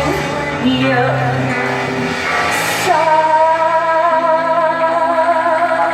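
Live music: a woman singing over sustained accompaniment, holding one long wavering note from about halfway through.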